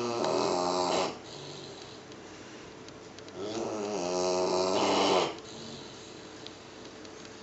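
Pit bull puppy snoring loudly in its sleep: the tail of one snore ends about a second in, then a second long snore comes a few seconds later and lasts about two seconds.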